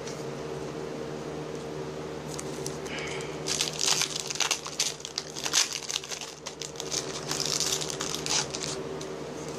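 A 2015 Allen & Ginter baseball card pack wrapper crinkling as it is handled and opened. There is a flurry of crackles from about two seconds in until near the end.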